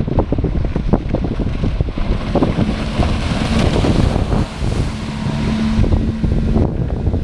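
Wind buffeting the microphone over open water, while a rigid inflatable boat's outboard motor passes close at speed through the middle, its engine heard as a steady hum along with the hiss of its spray and wake.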